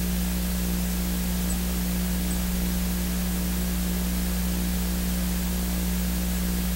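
Steady electrical hum with hiss from the recording chain: a low buzzing drone with an even static-like hiss over it, unchanging throughout.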